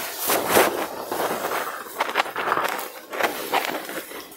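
Crisp tissue Banarasi saree fabric rustling in irregular swishes as it is unfolded and spread out by hand.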